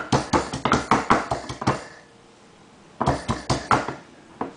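Garlic being mashed with rapid knocking strikes, about seven a second, in two runs with a short pause between and a last single knock near the end.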